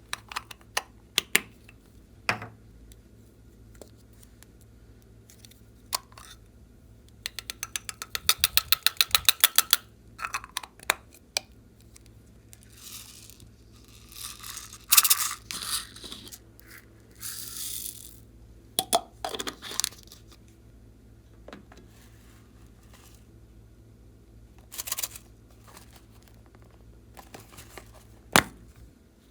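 Slime being pressed, poked and stretched by hand, giving scattered sticky pops and clicks. About a third of the way in comes a fast run of popping, then short wet swishes as the slime is pulled and folded.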